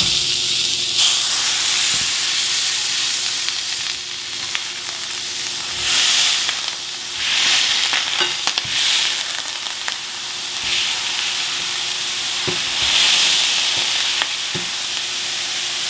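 Ground venison sizzling in a smoking-hot stainless steel skillet. The sizzle starts suddenly as the meat goes in, then swells louder several times as the meat is pressed flat with a metal spatula into a smash burger.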